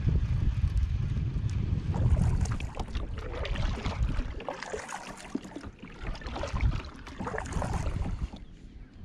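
Kayak paddle strokes dipping and splashing in the lake water, an irregular run of splashes about a second apart, with wind rumbling on the microphone through the first few seconds.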